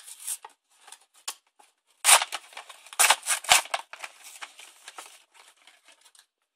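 Cardboard blister-card toy packaging being torn open and crinkled by hand: a run of rips and crackles, loudest about two seconds in and again about three seconds in, then smaller crackles.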